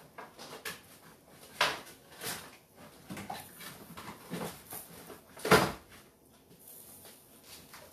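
Kitchen handling sounds: a scatter of knocks and clatters as things are moved about on a countertop. The loudest is a single sharp knock about five and a half seconds in.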